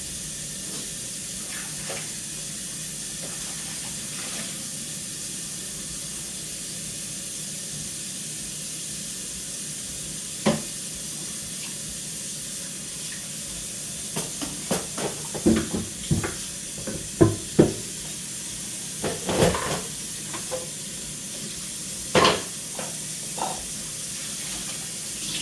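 Kitchen sink tap running steadily while dishes are washed. Plates and pans clink and knock against each other and the sink, one knock about ten seconds in and a busy run of clatters from about fourteen seconds on.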